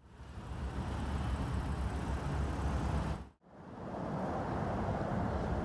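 Road traffic: cars idling and creeping forward in a queue, a steady low rumble of engines and tyres. It cuts out briefly a little past halfway, then resumes.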